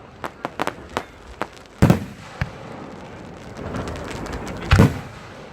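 Fireworks going off: a quick run of crackling pops, then a loud boom a little under two seconds in and another near the end.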